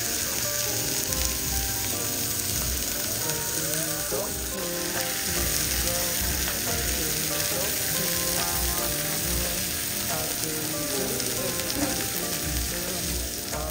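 Côte de bœuf sizzling on a wood-fire grill: a steady, dense sizzle of fat and juices hitting the heat.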